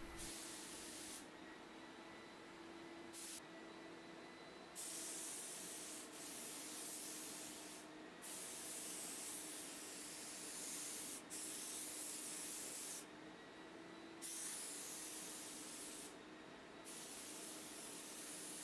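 Air spray gun with a bottom-mounted paint cup hissing in repeated bursts as the trigger is pulled and released during spray passes, some lasting several seconds with short gaps between. A faint steady hum runs underneath.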